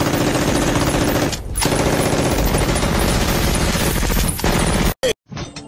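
Belt-fed machine gun firing in long rapid bursts, a dense rattle of shots with a short break about a second and a half in. It cuts off suddenly near the end.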